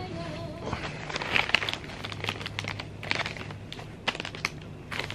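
A thin plastic wrapper or packet being handled and crinkled, giving irregular sharp crackles that start about a second in.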